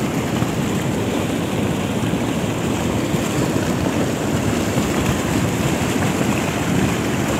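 Steady rushing noise of a hot lahar, a volcanic mudflow of ash, mud and water, surging over rocks.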